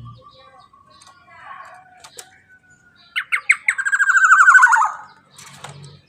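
Black-naped oriole (kepodang emas) calling: a faint thin whistle, then a loud burst of a few quick notes running into a rapid trill that falls in pitch and ends about five seconds in.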